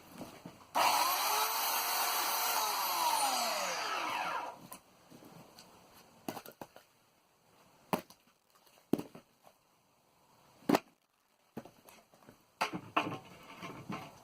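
Oregon CS1500 electric chainsaw motor starting suddenly and running for about four seconds, its pitch rising and then sinking as the motor slows before it stops. Then scattered knocks and clunks, like wood pieces being handled or dropped.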